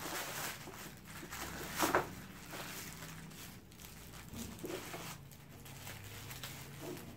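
Thin plastic bag wrapping crinkling and rustling as it is cut with scissors and pulled open by hand, with a louder crackle about two seconds in.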